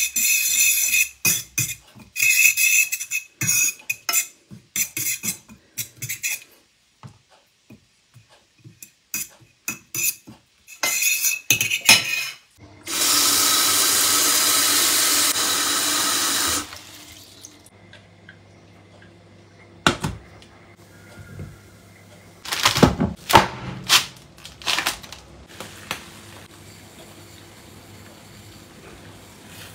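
A metal fork beats oil and chopped parsley in a ceramic bowl in quick scraping, clinking strokes. Near the middle, a kitchen tap runs a steady stream into a stainless-steel pot for about four seconds. Later, coarse salt rattles and crackles as it is thrown into the pot of water.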